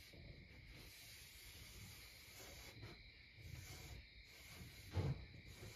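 Faint soft rubbing of a cloth wiping finish along a long wooden tool handle, with a soft knock about five seconds in.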